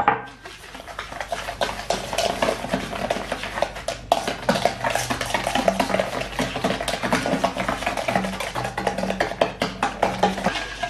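A fork beating egg and sugar in a stainless steel bowl: fast, continuous clicking and scraping of metal on metal, with the bowl ringing faintly. A sharp knock sounds right at the start.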